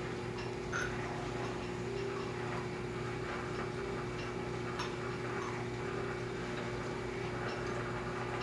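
A steady low hum with faint, scattered ticks.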